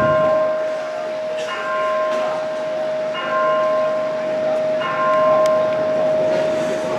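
Electronic loudspeaker clock bell striking the hour, one even strike about every second and a half, each ringing on over a steady humming note.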